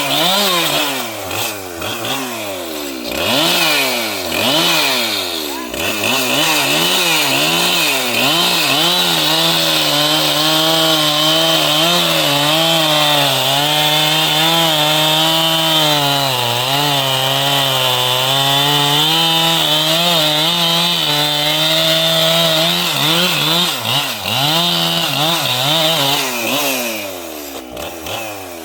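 Large two-stroke chainsaw revving up and down in quick blips, then held at full throttle with a slightly wavering pitch, as when cutting into wood, before the engine falls away near the end.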